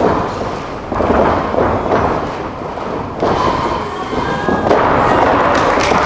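Repeated thuds and impacts of two pro wrestlers brawling, bodies hitting the ring and each other.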